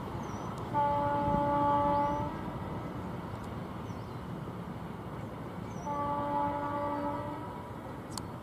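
WAP7 electric locomotive's horn sounding two blasts about five seconds apart, each about a second and a half long, over a steady low rumble.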